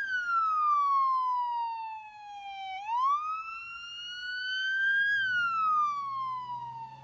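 Police car's electronic siren on a slow wail: the pitch sinks for nearly three seconds, climbs again until about five seconds in, then sinks once more.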